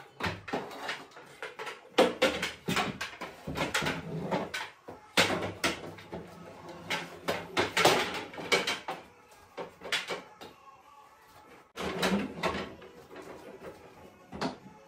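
Wooden bed slats clattering and knocking against each other and the bed frame as they are handled and laid onto the bed's metal slat rail: a dense run of irregular knocks, easing off briefly near the end.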